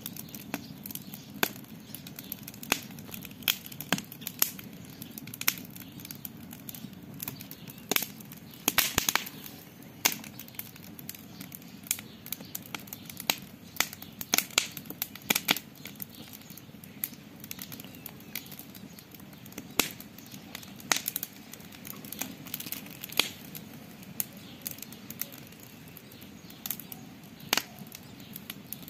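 Campfire crackling, with sharp irregular pops and snaps, a denser run of them about eight seconds in, over a steady low rushing of the flames.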